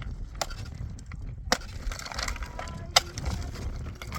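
Sharp wooden knocks and cracks from hands-on building work: three loud strikes spaced a second or more apart, with smaller clicks between them, over a low rumble.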